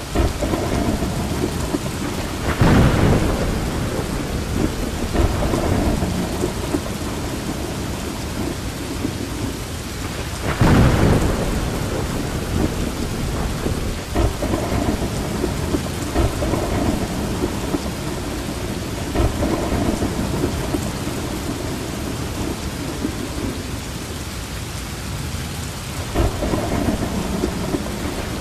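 Steady heavy rain with thunder rumbling now and then, loudest a few seconds in and again about eleven seconds in, with a weaker rumble near the end.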